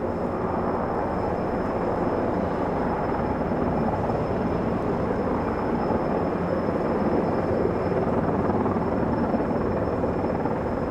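Sikorsky S-64 Skycrane heavy-lift helicopter in flight, its main rotor and twin turbine engines making a steady, even noise.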